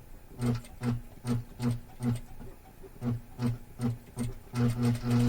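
Sewing machine stitching slowly through faux leather, one stitch at a time: a hum and a needle knock on each stitch, about two or three a second, with a short pause in the middle and the stitches coming closer together near the end.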